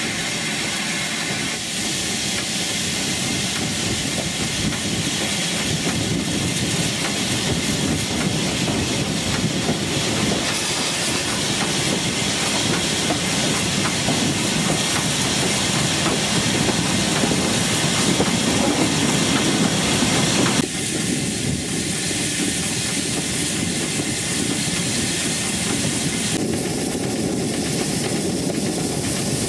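L&YR Class 27 0-6-0 steam locomotive No. 52322 moving slowly with its coaches: a steady hiss of steam escaping around its cylinders, with the wheels clicking over the rail joints.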